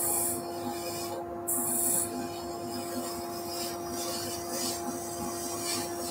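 Wood lathe running with a steady hum while a turning chisel cuts the spinning wooden cylinder, the cuts heard as bursts of hissing, scraping shaving noise. Two short strong cuts come in the first two seconds, then lighter, uneven scraping follows.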